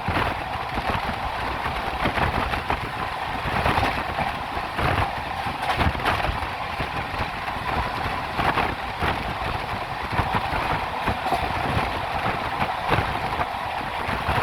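Poorva Express train's wheels running over the track at speed: a steady rumble with irregular sharp clacks from the rails.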